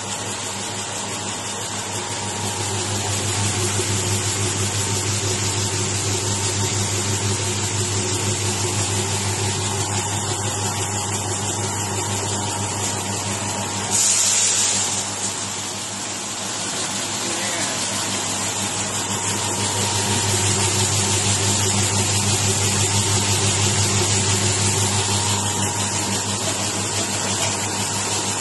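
Electric vertical feed mixer running with a steady motor hum. About halfway through there is a brief loud noise as the discharge gate is opened. After that, mixed feed pours from the chute onto a sheet-metal tray, and the sound gets a little louder.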